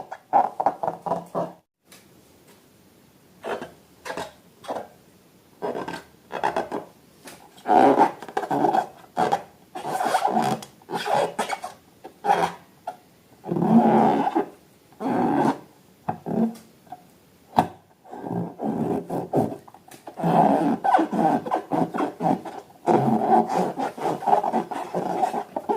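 Rubber balloons being rubbed and squeezed, giving irregular bursts of squeaky, growl-like rubbing, denser in the last few seconds.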